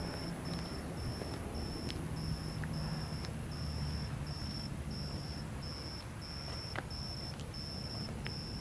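Insect chirping in a steady high-pitched rhythm, about two pulses a second, over a low rumble.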